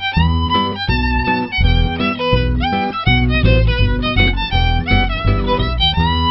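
Background music: a violin-led tune over a steady beat.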